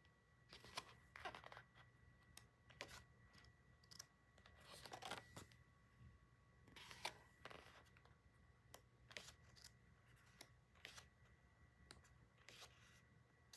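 Faint rustling of paper and plastic packaging, with scattered small clicks and taps, as items are unpacked by hand. A faint steady high whine sits underneath.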